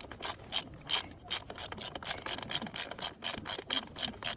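Ratchet with a 10mm socket clicking in rapid, even strokes, about six clicks a second, as it winds out a tight, rusty chain adjuster bolt on a Honda CRF150R swingarm.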